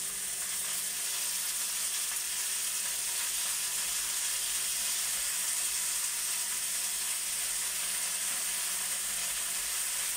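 Chicken and potatoes frying in oil in a pan, a steady high sizzle, as pieces of fried marinated chicken are added one by one with tongs.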